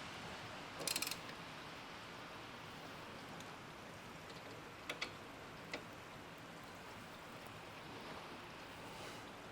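Hand tools clicking on metal: a quick run of clicks about a second in, then three single clicks around five to six seconds in, over a faint steady hiss.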